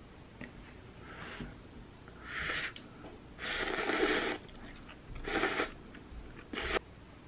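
A person slurping noodles from a bowl of soybean-paste noodle soup, four times. The second slurp, in the middle, is the loudest and lasts about a second.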